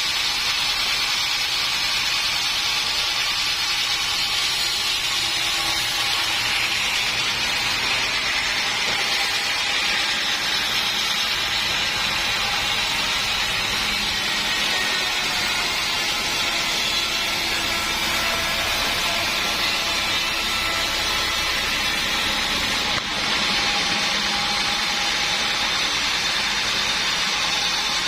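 Sawmill saw machine running steadily, a loud, even mechanical noise with no pauses, typical of a saw working through teak.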